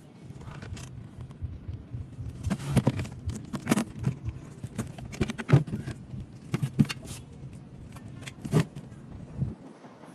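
Irregular metallic clinks and knocks, some in quick clusters, over a low steady hum.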